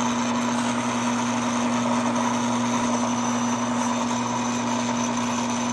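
Electric motor of a Timken-type oil wear tester running with a steady hum, spinning its test ring during a wear test on plain engine oil with no additive.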